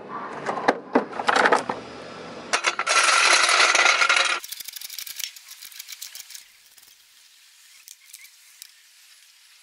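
Clicks and metallic clinks of tools being handled: the latches of a plastic tool case and loose lug nuts. About three seconds in comes a loud steady burst of mechanical noise lasting about a second and a half that stops abruptly, followed by faint scattered clicks.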